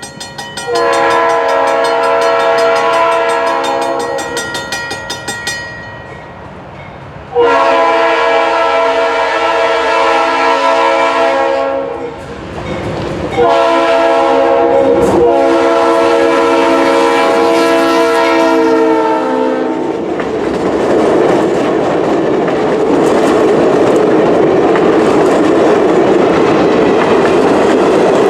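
Diesel locomotive air horn sounding three long blasts, followed by the train rolling past with a loud, steady rush of wheels on rail.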